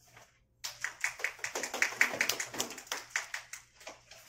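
A small group of people applauding. The clapping starts suddenly about half a second in and thins out near the end.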